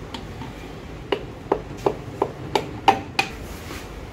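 A series of seven sharp knocks, about three a second, briefly ringing: a hammer tapping on metal engine parts during an engine rebuild.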